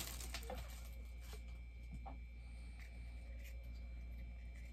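Faint handling noises of a bobblehead's packaging being worked open: scattered soft clicks and a few short squeaks.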